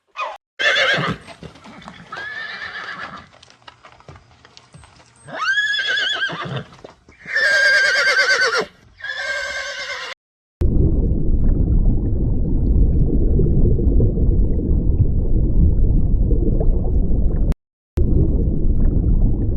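Horses neighing several times, high wavering whinnies with a quavering tail. After about ten seconds they give way to a steady low rumbling noise that runs on with one short break.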